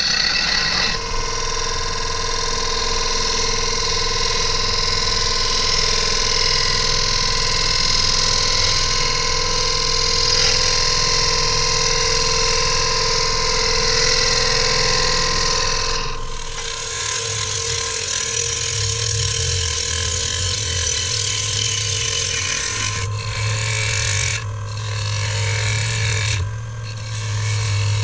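Bowl gouge cutting a spinning beech bowl blank on a Nova Saturn DVR lathe: a continuous hiss of wood being cut over the steady whine of the lathe's motor. About halfway through, the cutting noise thins and turns intermittent, with a low hum underneath.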